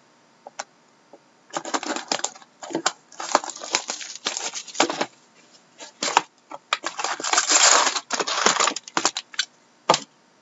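Trading card box and foil pack wrappers being opened and handled by hand: irregular crinkling and rustling with sharp clicks, starting about a second and a half in.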